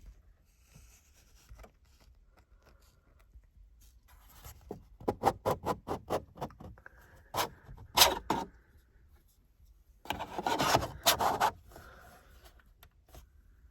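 A 3D-printed plastic platform rubbing and scraping against the car's dashboard trim as it is pushed and worked into place. There is a quick run of clicks about five seconds in, a few louder scrapes, then a longer rubbing scrape near the end.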